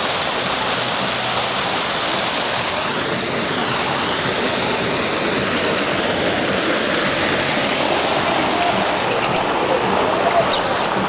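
Water falling steadily down a rock face in a waterfall, a continuous splashing rush.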